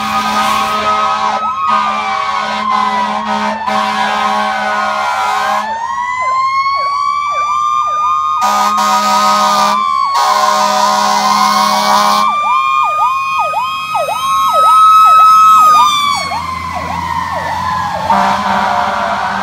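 Fire engine's siren wailing in slow rises and falls, with a faster yelping siren sweeping about three times a second over it from about six seconds in until about sixteen seconds in. Two long, loud low horn blasts sound around eight and ten seconds in. The siren is loudest near fifteen seconds as the truck passes close, then falls away as it drives off.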